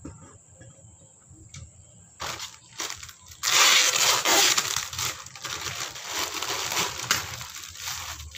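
Plastic packaging bag crinkling and rustling as it is handled and pulled open. Faint rustles and clicks at first, then loud crinkling that starts about two seconds in and dies down near the end.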